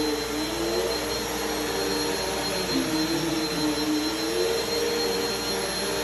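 Bissell vacuum cleaner running steadily over carpet, a constant rushing hiss with a motor whine that wavers up and down in pitch as it is pushed back and forth.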